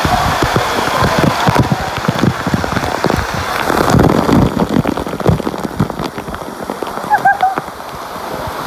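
Water splashing and pattering steadily, like rain or falling water, with many dull knocks close to the microphone. A few short high chirps come near the end.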